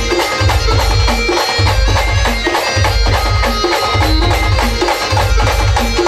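Band music: a song tune on melody instruments over a fast, steady drum and percussion beat with a heavy, repeating bass.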